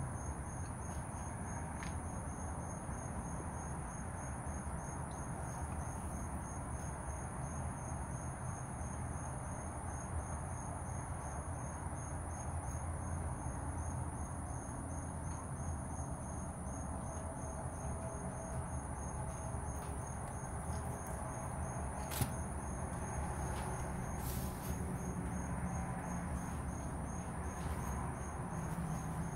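Evening insects trilling steadily at a high pitch with a fine, rapid pulse, over a low outdoor rumble. A single sharp click sounds about three-quarters of the way through.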